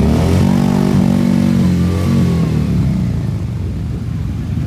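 A motorcycle engine revved: its pitch climbs, holds for about two seconds, then drops away, over the low rumble of other motorcycles idling.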